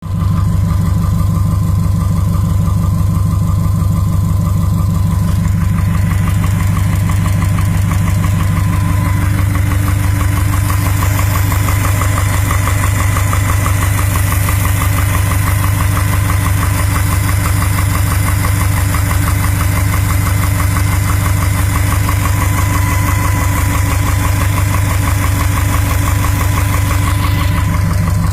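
2012 Subaru WRX STI's turbocharged 2.5-litre flat-four idling steadily, with a rapid, even knocking: piston slap from its forged Manley drop-in pistons.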